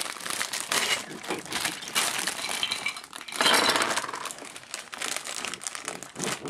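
Plastic parts bags crinkling while small plastic Lego pieces click and clink as they are handled, with a louder rustle about three and a half seconds in.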